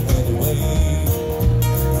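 Live band playing: strummed acoustic guitar with a second guitar and a drum kit keeping a steady beat.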